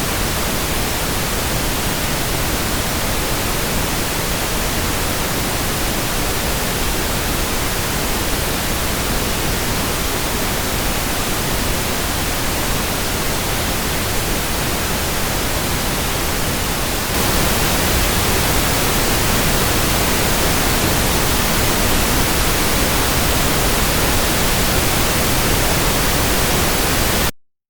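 Pink noise test signal for checking speaker channel orientation: a steady, even hiss that gets a little louder and brighter about seventeen seconds in, then cuts off suddenly near the end.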